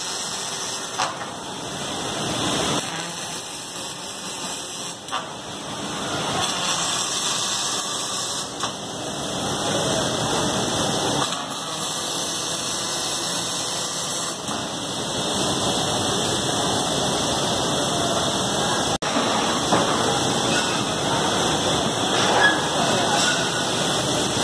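Robotic MIG welding arcs crackling and hissing on a car chassis line, with steady factory machine noise behind.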